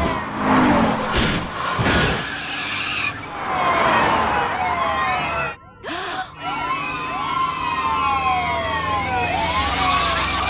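Cartoon car-chase sound effects: police car sirens wailing and car tyres screeching. There are a few knocks in the first two seconds and a brief drop-out a little past halfway.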